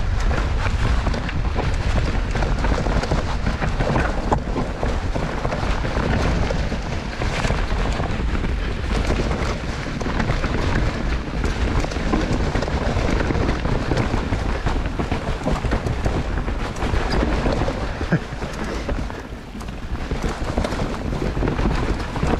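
Mountain bike descending a trail: tyres running over dirt and the bike rattling over bumps, with wind rushing on the microphone. The noise eases briefly about nineteen seconds in.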